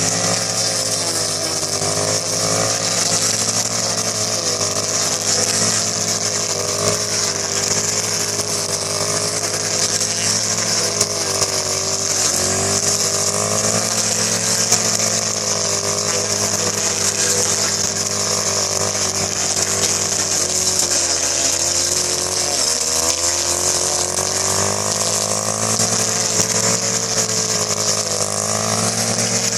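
Small engine of a rice-cutting machine running steadily, with a strong high hiss over it. Its pitch dips briefly a few times, around the middle and again past two-thirds.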